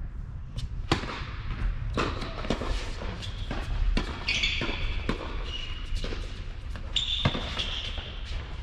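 Tennis balls struck by racquets in a doubles rally on an indoor hard court: sharp pops about once a second, starting with the serve about a second in. High squeaks from sneakers on the court come in twice, a little after the midpoint and near the end.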